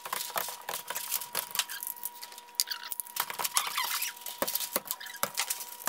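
A large sheet of bulletin board paper crinkling and rustling as it is pressed and smoothed flat against a wall, a dense run of small crackles and clicks.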